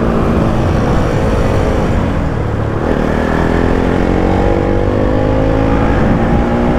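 Motorcycle engine under way, easing off for the first couple of seconds, then pulling steadily with its pitch slowly rising. Wind rushes over the helmet-mounted microphone.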